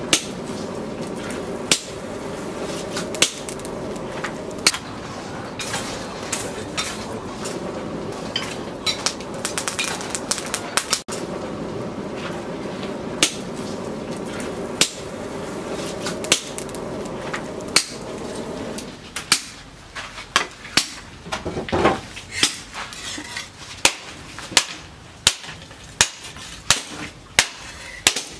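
Charcoal forge with a steady rush of its air blast while the steel blade heats, broken by scattered clinks of tongs, blade and coals. About two thirds of the way in the rush stops, and a hand hammer starts striking the red-hot disc-plough steel on a steel anvil, about three blows every two seconds.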